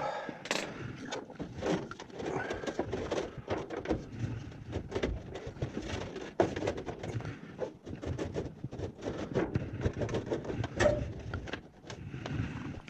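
Hands working on a condensate pump's plastic housing and parts: a busy run of clicks, knocks and rustling.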